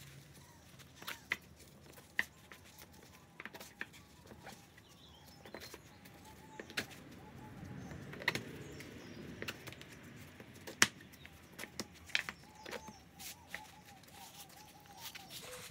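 Wooden and leather handle spacers clicking and knocking together as they are slid one by one onto a sickle's tang, in irregular sharp clicks. A bird calls in the background in two wavering stretches.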